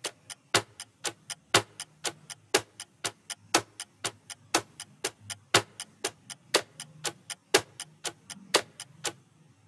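Clock-ticking sound effect marking a countdown timer: about four ticks a second, with a louder tick once each second. It stops shortly before the end.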